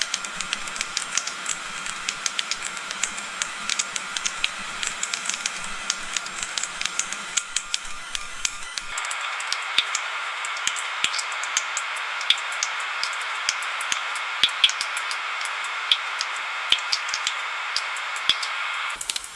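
Rain dripping: many irregular drops ticking sharply over a steady hiss of rain. About halfway through, the background hiss shifts to a brighter, louder bed.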